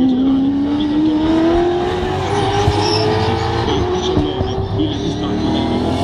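Racing saloon car's V8 engine accelerating hard out of a corner, its pitch climbing steadily, then dropping at a gear change a little past halfway through before it climbs again.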